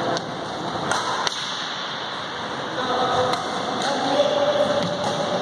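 Badminton rackets striking shuttlecocks: several sharp hits at uneven intervals.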